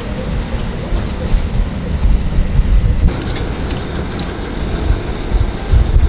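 Low, steady engine rumble, with a few faint clicks.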